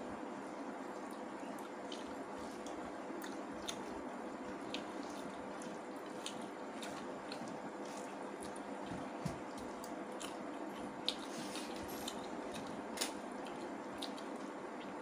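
Eating sounds: wet chewing and mouth smacking with many small clicks, and fingers squishing rice and curry together on a plate, a few louder smacks in the second half. A faint steady hum lies underneath.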